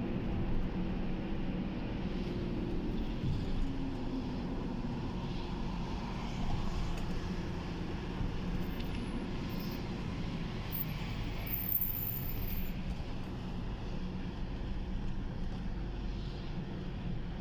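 Steady engine and road noise from inside a moving vehicle, a low even rumble with a faint hum.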